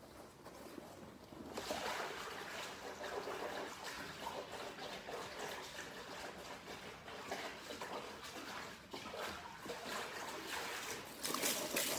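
Running water, starting abruptly about a second and a half in and going on steadily, louder near the end.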